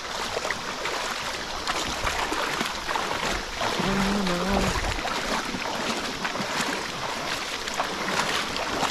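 River rapids: shallow water rushing over a gravel bed, a steady hiss of moving water. A short hum from a voice comes about four seconds in.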